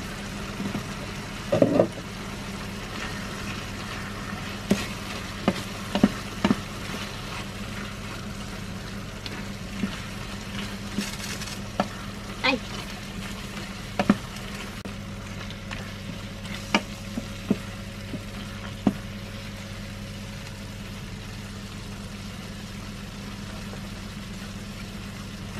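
Eggplant sautéing in a frying pan, sizzling steadily, with irregular clicks and scrapes of a utensil stirring it against the pan. A steady low hum runs underneath.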